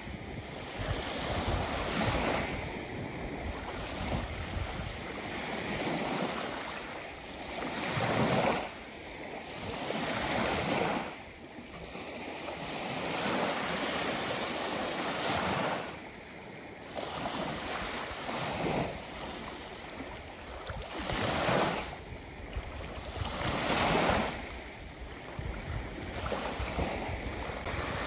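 Ocean surf breaking and washing up the shore, surging louder every few seconds and easing off between waves.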